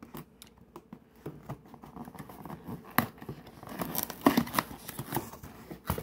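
Cardboard and plastic packaging being handled and opened by hand: scattered clicks, rustling and scraping, busiest and loudest around four seconds in.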